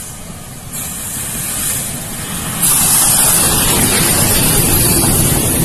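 MÁV class 424 steam locomotive letting off a loud hiss of steam. The hiss steps up a little about a second in, then jumps abruptly louder about two and a half seconds in and holds.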